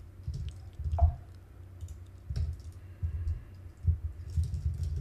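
Irregular clicks and taps on a computer keyboard: a few scattered keystrokes with low thuds, not a steady run of typing.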